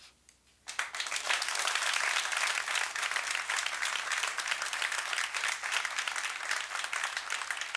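Audience applauding: many hands clapping together, starting suddenly under a second in and carrying on steadily.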